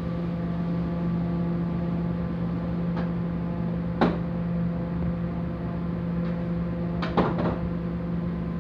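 Steady hum of a commercial gas wok range burning on a high flame, with sharp metal knocks of a utensil on the wok or range: one about four seconds in and a quick cluster around seven seconds.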